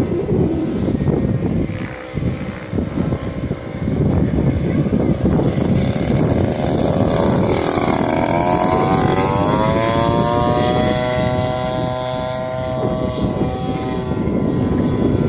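Revolver 50cc model aircraft's propeller engine running in flight. Its whine drops sharply in pitch about halfway through, then holds steady and rises a little.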